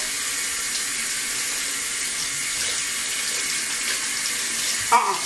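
Sink tap running steadily, water splashing as hands are washed under the stream.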